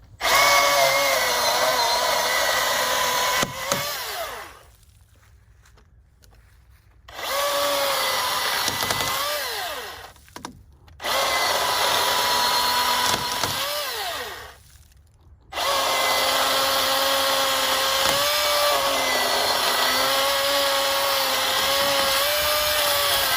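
Milwaukee Fuel battery chainsaw cutting through a big log in four runs, its electric motor whine starting and stopping with the trigger. The pitch sags and recovers slightly under load, and it winds down quickly each time it is released.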